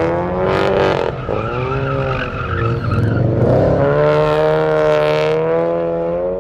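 A car engine revved hard while the car spins, with tyres squealing. The revs waver, dip about a second in and again near the middle, then hold high.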